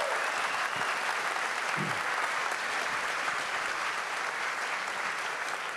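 Large audience applauding steadily, easing off slightly near the end.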